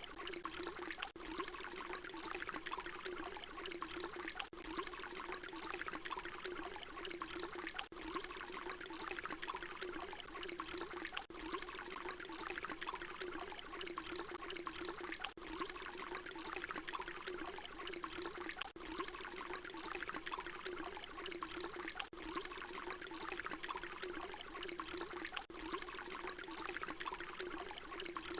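Water pouring in a steady stream, splashing and trickling with a low, even gurgle, cut by a brief dip about every three and a half seconds where the short recording loops.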